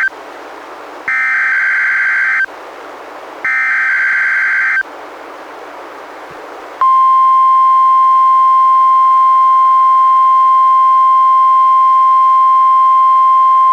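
NOAA Weather Radio Emergency Alert System test received on a weather radio: the tail of one SAME digital header burst, then two more screeching header bursts of about a second and a half each, with radio hiss between them. About seven seconds in, the NWR warning alarm tone starts and holds at one steady pitch.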